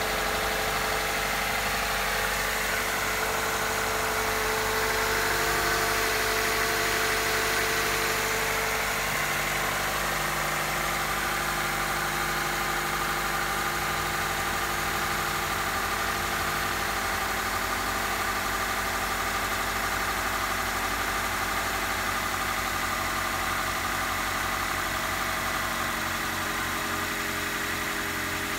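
Toyota 1NZ-FE 1.5-litre inline-four engine idling steadily.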